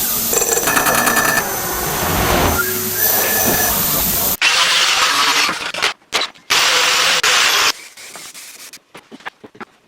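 Loud mechanical noise, as from workshop power tools or machinery, in a few segments that cut in and out abruptly.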